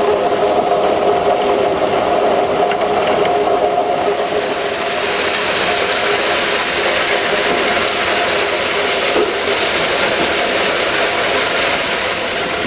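Ballast train running on the track: a steady loud rattling rush with a whining tone that fades out after about four seconds, while the hissing rush grows stronger.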